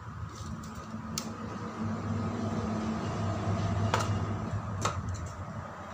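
A desk stapler clicking sharply three times, about a second in and twice near the end, as banana-leaf folds are stapled, over a steady low hum.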